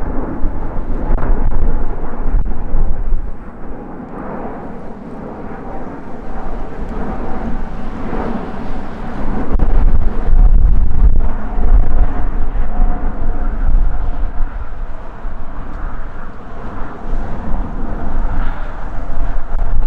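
Rolls-Royce Trent XWB engines of an Airbus A350 climbing out overhead: a deep jet rumble with a faint steady whine that eases a few seconds in and swells again around halfway. Wind buffets the microphone.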